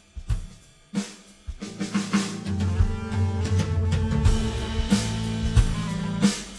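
Instrumental music: a drum kit plays sparse snare and kick hits, then about a second and a half in the full band joins with a sustained bass line and chords.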